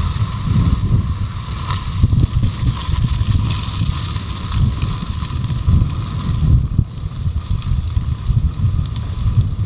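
Line fire burning through dry cereal stubble right over the camera: a gusty rumble of flames and wind on the microphone, with a hiss and scattered crackles. The hiss swells a few seconds in as the flame front passes over, then eases.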